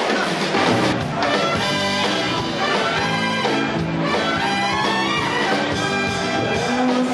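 A live swing band playing an instrumental passage with a brass section of trumpets and trombone carrying the tune over the rhythm section.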